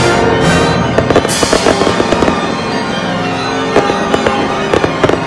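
Aerial fireworks going off in a string of sharp bangs, with music playing underneath.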